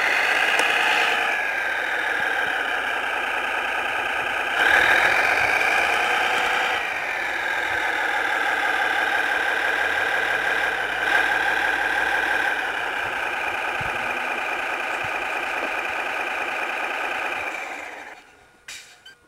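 Simulated diesel engine sound from a Servonaut SMX sound module in a Kyosho Blizzard radio-controlled snow groomer, played through its small speaker. It idles and revs up and back down once, then shuts off about 18 seconds in.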